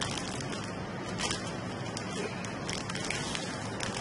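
Clear plastic bag crinkling and rustling as a laptop is slid out of it, with many irregular sharp crackles.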